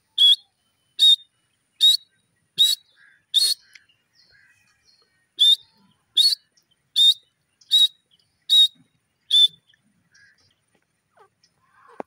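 Grey francolin calling: two series of loud, sharp whistled notes, five and then six, about 0.8 s apart, with a pause of about two seconds between the series.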